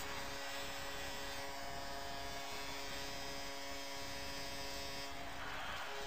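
The St. Louis Blues' arena goal horn blaring, a steady chord of several held tones. About five seconds in its upper tones change and a rush of noise swells under it.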